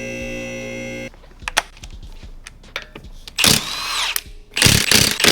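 A steady held tone cuts off about a second in. After it come a few clicks and two short bursts of a handheld power tool such as a cordless drill or impact driver running.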